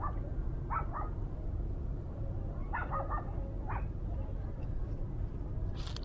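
Short animal calls, about four brief yelping calls a second or two apart, over a steady low rumble. Near the end comes a sharp swish as the fishing rod is jerked up to strike a fish.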